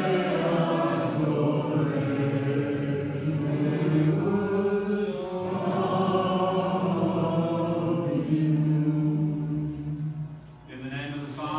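Congregation singing a liturgical song together in unison, with long held notes and short breaks between phrases. The singing fades out shortly before the end, and a voice takes over.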